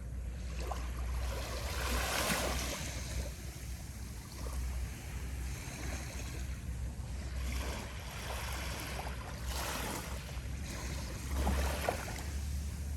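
Small waves breaking and washing up the beach of a calm sea, in a few soft swells several seconds apart, over a steady low rumble.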